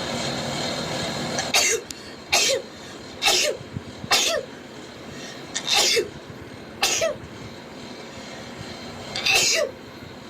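A girl sneezing rapidly: seven short, sharp sneezes in quick succession at uneven spacing, each falling in pitch at its end.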